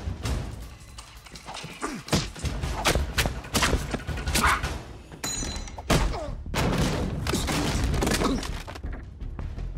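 A hand-to-hand fight between two men: a rapid run of punches, thuds and crashes of bodies and furniture.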